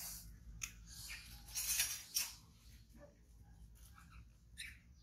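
Rustling and light knocks of branches, leaves and hammock fabric as two young monkeys climb a small tree and clamber onto a hammock, with a louder rustling stretch about a second and a half in.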